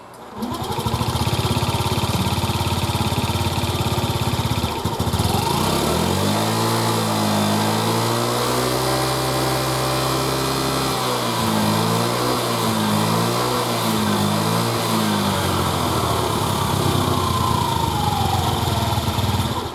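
Honda Gyro Canopy (TA03) scooter's small single-cylinder engine starts, idles, is revved up and held for a few seconds, blipped a few times, then settles and is shut off near the end. Its bearings newly replaced, it runs without the abnormal noise it had.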